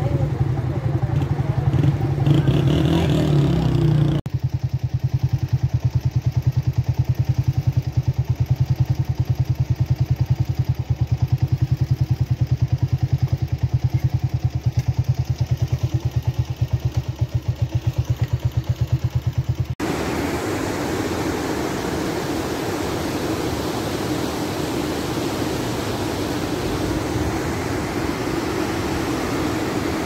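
A motor vehicle's engine running with a rapid, even low pulsing for about fifteen seconds, then after an abrupt cut the steady rushing of a fast mountain river's rapids.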